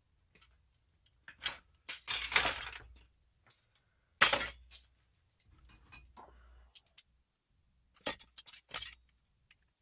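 Steel headlight mounting rings clinking and clattering as they are handled and set down on a workbench. There is a cluster of knocks early on, one loudest clank about four seconds in, and a few quick clicks near the end.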